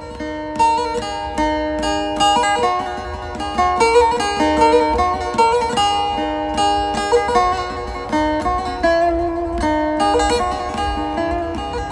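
Instrumental background music: a plucked string instrument playing a quick melody, note by note.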